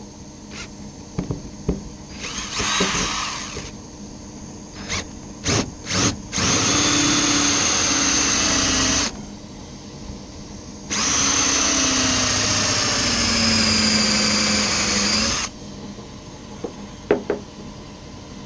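Cordless drill spinning a homemade hole-saw bit, a metal hose fitting with teeth ground into its end, as it cuts into a block of wood. It goes in a short burst and a few quick blips, then two runs of several seconds each, the pitch dropping during the second run. The improvised bit does cut the wood.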